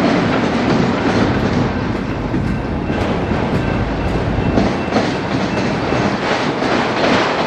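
Freight train of autorack cars rolling past close by: a steady rumble of steel wheels on rail, with irregular clacks as the wheels cross rail joints.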